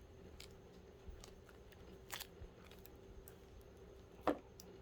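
Small plastic clicks and creaks from a 1/6-scale action figure's head being moved on its replacement ball-jointed neck peg. A sharper click comes about four seconds in.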